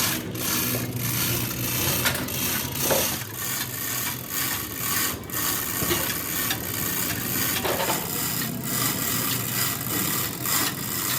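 Hand-tool scraping or rasping, repeated stroke after stroke at an uneven pace.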